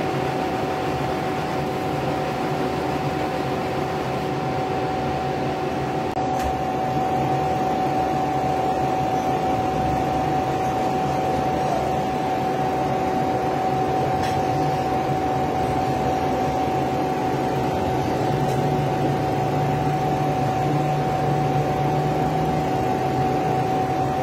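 Steady machine hum with a constant whine held at one pitch, from a running motor such as a fan or blower.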